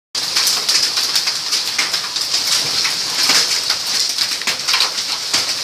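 Hailstones and rain pelting down: a dense, steady clatter of countless small ice impacts over a loud hiss.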